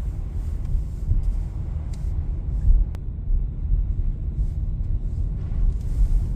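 Steady low rumble of a car driving, heard from inside the cabin: road and engine noise, with a faint single click about three seconds in.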